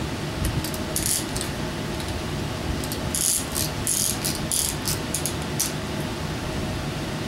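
Ratchet of a piston ring compressor being tightened by hand: several short runs of rapid clicks over a steady low shop hum.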